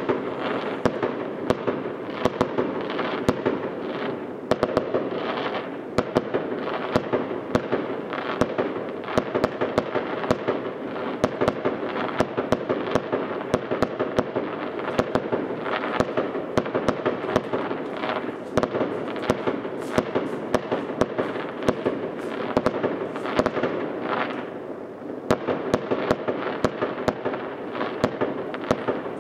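Aerial fireworks going off: a dense, continuous crackle packed with many sharp pops and bangs, easing off briefly near the end before picking up again.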